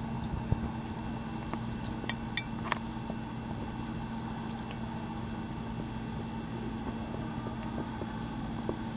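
Steady low background hum with faint fizzing from a Berocca effervescent vitamin tablet dissolving in a glass of water, and a few tiny pops of bursting bubbles about two to three seconds in.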